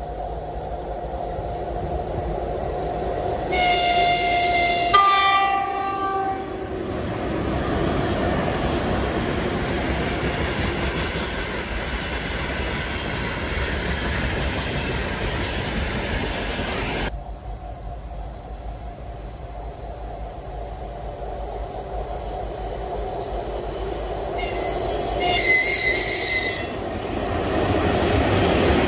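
3ES4K 'Donchak' electric freight locomotives passing with their trains, wagon wheels rolling and clattering over the rails. Near the start the locomotive sounds its horn twice, a lower note then a higher one; after a break, a second train passes and its crew gives a shorter, higher-pitched horn signal as a greeting.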